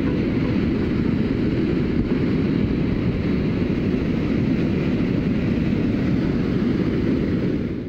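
Whitewater pouring over a rocky drop: a steady, low rush of water that fades out at the very end.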